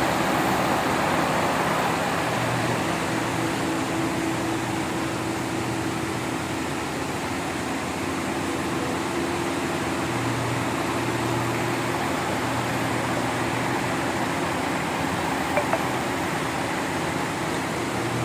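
Steady whir of a running fan with a held mid-pitched hum, a lower drone that swells in and out several times, and two small clicks near the end.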